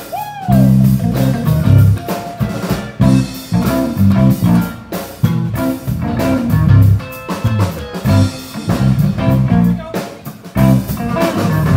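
A live band playing a funk instrumental: electric guitar over drum kit and a low bass line in a tight, syncopated groove.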